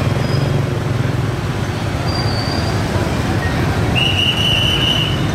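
Steady street traffic noise from motorbike engines running and passing close by. A high squeal lasting about a second starts about four seconds in.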